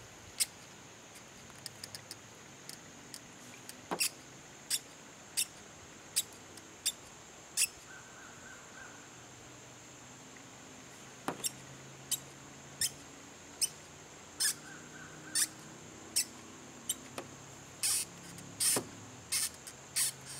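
Hand-operated vacuum brake bleeder drawing fluid from a front brake caliper: short, sharp squeaky ticks and sputters at irregular intervals, about one a second and quicker near the end, as air bubbles still in the brake line are sucked through leaky bleeder tubing.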